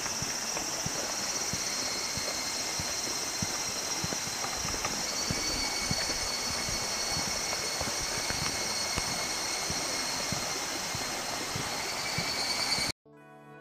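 Footsteps walking on a dirt and stone path, about two steps a second, over the steady rush of a fast-flowing river. Near the end the sound cuts off suddenly to soft music.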